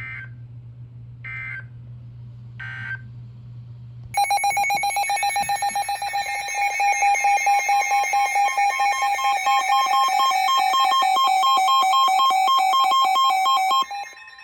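Three short chirps of Emergency Alert System (SAME) digital code about a second and a half apart, the end-of-message signal closing the previous alert. About a second later the loud EAS attention signal starts: a harsh, pulsing two-tone alarm that holds for about ten seconds and then cuts off.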